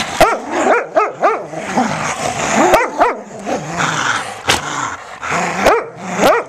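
Dogs growling and yipping in play during a tug-of-war over a squeaky toy: a rapid run of short rising-and-falling whiny calls, several a second, with a few sharp clicks.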